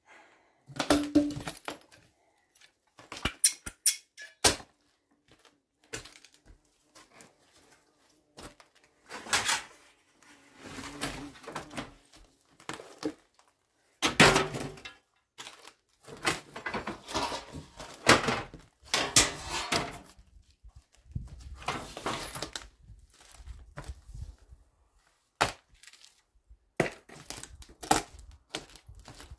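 Irregular knocks, thuds and clatters of junk and debris being picked up, moved and dropped while a building is cleared out, mixed with scraping and rustling that lasts about a second at a time.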